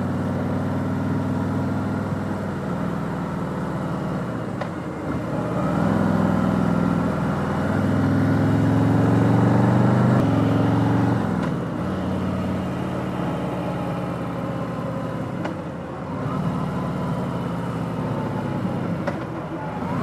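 2020 Harley-Davidson Electra Glide Standard's Milwaukee-Eight 107 V-twin engine running under way. It gets louder and rises in pitch from about five seconds in to about ten seconds as the bike accelerates, then drops back to a steadier cruise.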